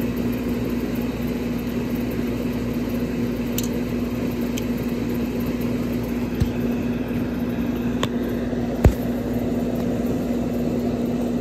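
A steady mechanical drone with a constant hum, like a running motor. A few light clicks and one sharper knock come near the end.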